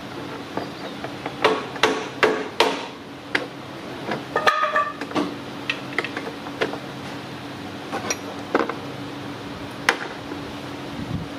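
Irregular sharp clicks and knocks of hard plastic as a wiring-harness retaining clip is pried and worked loose by hand behind the radiator fan shroud.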